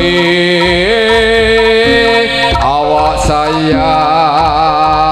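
Javanese jaranan/tiban music: a singer holding long, wavering sung notes over instrumental accompaniment, amplified through a sound system.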